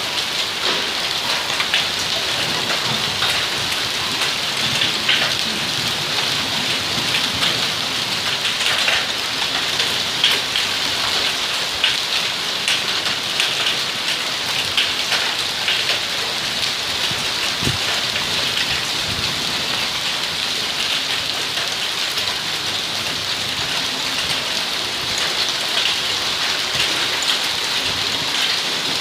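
Heavy hailstorm: a steady downpour with frequent sharp ticks and taps of hailstones striking throughout.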